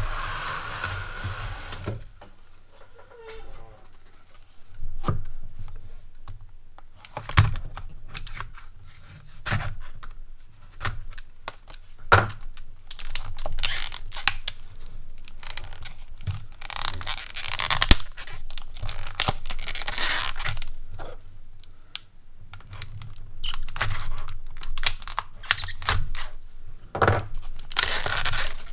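Retail packaging being torn open and handled to free a new pair of pliers: repeated tearing and crinkling of card and plastic, with scattered clicks and knocks.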